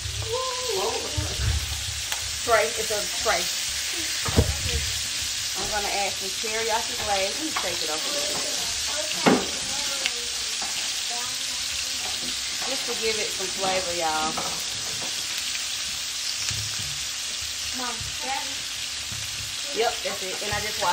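Lamb chops frying in a pan: a steady sizzle, with two sharp knocks about four and nine seconds in.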